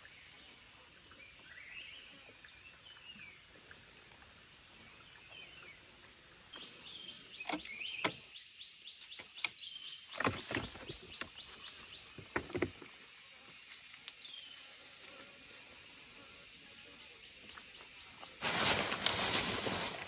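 Quiet forest background with a few faint bird chirps, then scattered clicks and crackles of dry leaves and twigs being handled at a shallow stream. Near the end comes a loud burst of close rustling.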